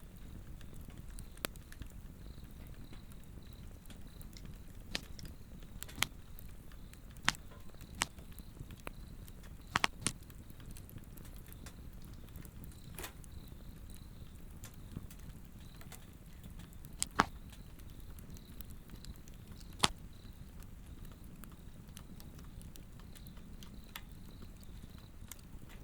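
Swedish torch log fire burning with a low, even rustle and irregular sharp crackles and pops from the wood, about ten over the span. A faint, steady high insect trill runs underneath.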